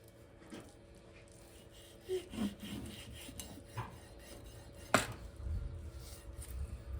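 Food-preparation handling: scattered scraping and rubbing sounds, with one sharp knock about five seconds in.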